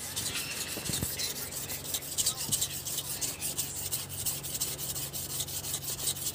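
A dull metal blade being sharpened by hand, with quick, evenly repeated rasping strokes.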